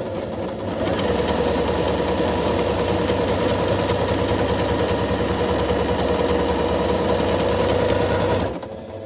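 Singer C5655 computerized sewing machine running steadily, sewing a zigzag stitch: its motor and needle mechanism go with a fast even rhythm, picking up speed about a second in and stopping about eight and a half seconds in.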